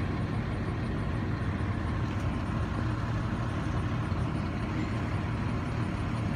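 A vehicle engine idling: a steady low rumble that holds even throughout.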